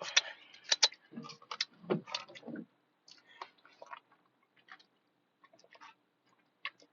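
Close-miked eating sounds: chewing with wet mouth clicks and lip smacks, dense for the first couple of seconds, then only a few scattered clicks.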